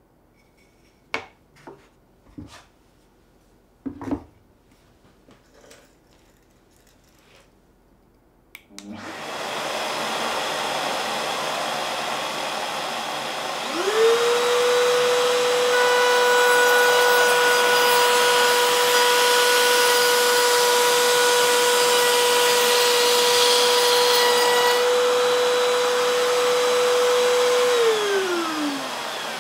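A few light wooden knocks, then about nine seconds in a vacuum on the table's dust-collection hose starts and runs steadily. A few seconds later a trim router in the table spins up to a steady high whine while a board in a push sled is fed past the bit. The router is switched off and winds down in pitch near the end, with the vacuum still running.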